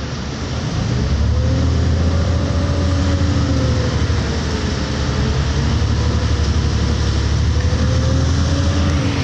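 City bus engine and drivetrain heard from inside the passenger cabin: a steady low rumble that grows louder about a second in, with a faint whine that rises and falls slowly as the bus runs.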